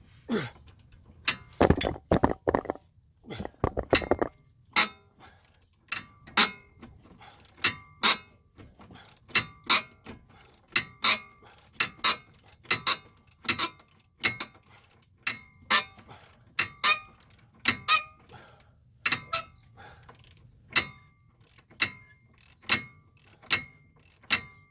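A few heavy metal knocks, then a hand ratchet wrench clicking in a steady rhythm, about one sharp click every 0.8 s, as a seized suspension bolt on the strut is slowly worked out.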